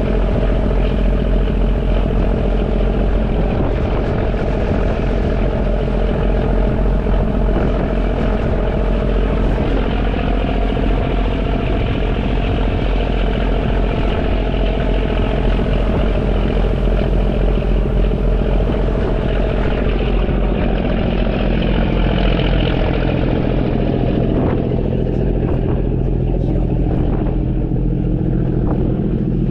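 Boat engine running steadily at cruising speed, then dropping in pitch as it slows about twenty seconds in.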